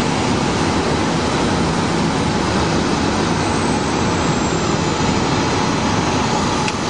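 Steady rush of air streaming past a glider's cockpit canopy in flight.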